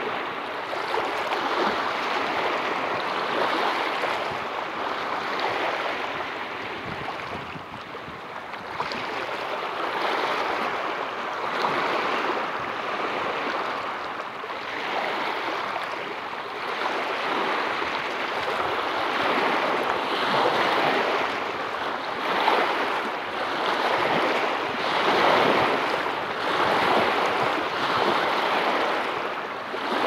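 Small waves washing in and breaking over rocks at the water's edge, in swells every couple of seconds. The surges get louder in the second half.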